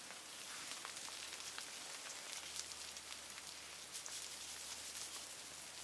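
Campfire burning with a steady hiss and scattered small crackles.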